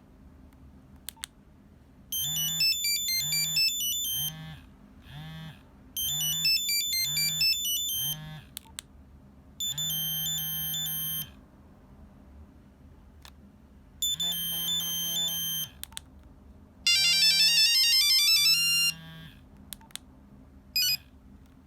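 A Nokia 3395 playing monophonic ringtones from its small built-in speaker: five short beeping melodies of a couple of seconds each, one after another with pauses between, and a few faint clicks in the gaps.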